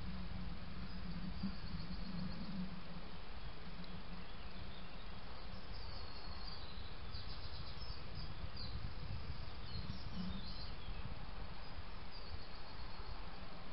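Steady background hiss with faint, high-pitched chirps and rapid trills coming and going, clustered around six to ten seconds in and again near the end: outdoor woodland ambience.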